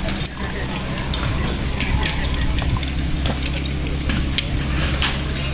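A small engine running steadily at idle, which in this setting is the portable fire pump, with frequent metallic clinks and knocks of hose couplings and equipment being handled over it.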